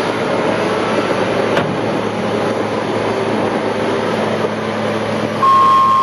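Caterpillar 938M wheel loader's diesel engine running steadily as the machine pushes a pickup truck. A short steady beep comes in near the end.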